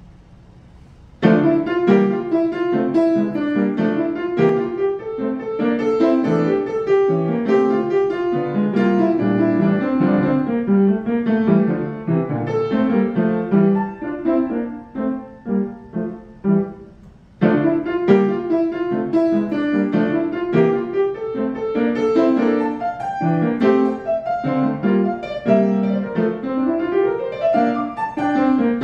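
Grand piano played solo: a fast, lively piece full of quick notes, starting about a second in. Near the middle it softens to spaced, fading notes, breaks off for a moment a little past halfway, then comes back loud with another fast passage.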